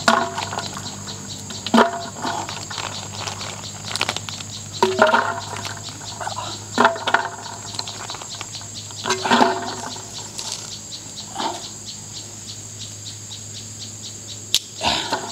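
Insects trilling steadily in the background, with sharp clicks and knocks as snail shells are handled on a grill grate. A short pitched call with a slight bend repeats every two to three seconds.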